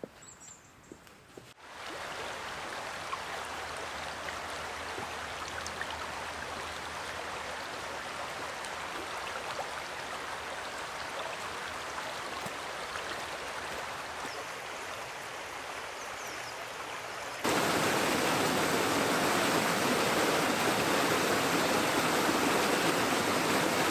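A moorland stream running over rocks, a steady rush of water that comes in about two seconds in. About seventeen seconds in it turns louder and fuller: a small waterfall pouring over a rock ledge into a churning pool.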